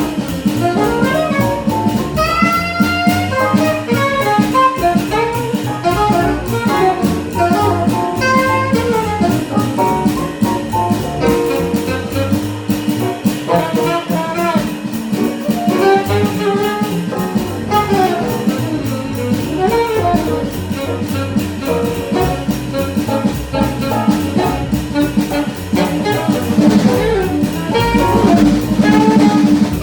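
Small jazz band playing bebop live: a fast horn line over piano, double bass and drum kit, with the cymbals keeping a steady beat.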